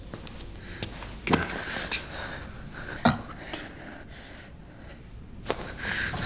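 Film sound effects of a scuffle: two sharp thuds about two seconds apart, the second the louder, with cloth rustling and hiss between them and a further click and rush of noise near the end.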